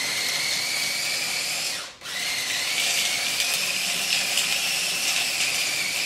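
Small electric blender running as it purees pesto of basil, nuts, garlic and olive oil: a steady motor whine that stops for a moment about two seconds in, then starts again and rises a little in pitch.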